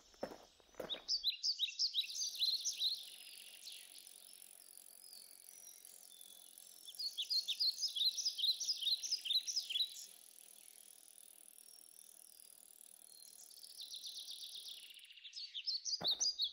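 Three bursts of a songbird's rapid, falling chirps over a steady high insect drone. The drone cuts off abruptly near the end.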